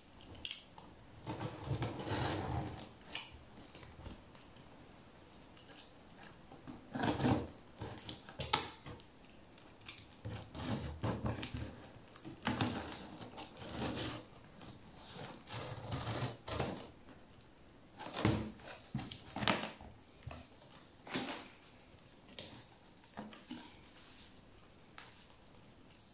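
Packing tape on a cardboard box being slit and scraped, then the cardboard flaps pulled open and handled: irregular scraping, tearing and rustling with short gaps between.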